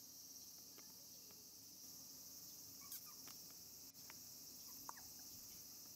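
Near silence with a faint, steady high chirring of insects, and a few brief faint ticks over it about halfway through and near the end.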